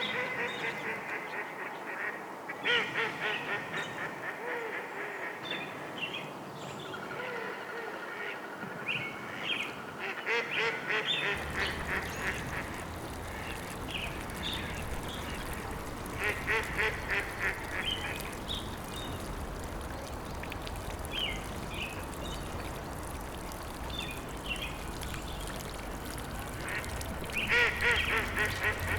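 Birds calling in repeated runs of quick pulsed notes, with short higher chirps between them. About eleven seconds in, a steady low rush joins and carries on underneath.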